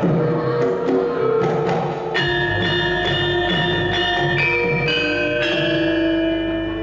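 Gamelan accompaniment music for a dance-like stage scene. The first two seconds hold quick rhythmic strikes, then about two seconds in a chord of struck metal keys rings out and sustains, with another stroke a little after five seconds.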